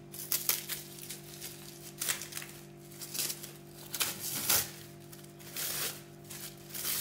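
Plastic cling film crinkling and rustling in irregular bursts as it is handled and unwrapped from a ball of pastry dough, over a steady low hum.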